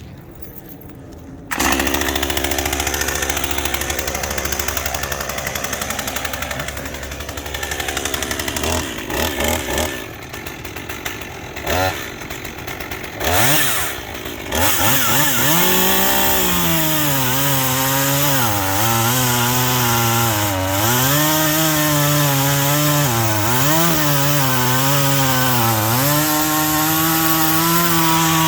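Chainsaw engine starting about a second and a half in, then idling, then revving hard with its pitch repeatedly rising and sagging. It is being test-run with a freshly fitted and tensioned chain.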